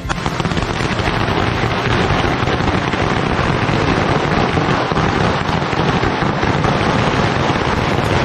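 A long string of firecrackers going off: a dense, continuous crackle that starts abruptly.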